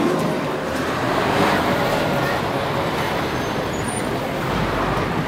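Steady city street noise of passing road traffic, with a low rumble swelling near the end.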